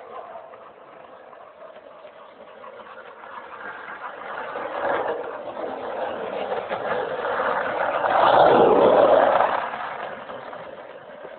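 Skateboard wheels rolling on asphalt, a rumble that swells as the board comes close, is loudest about eight to nine seconds in, then fades.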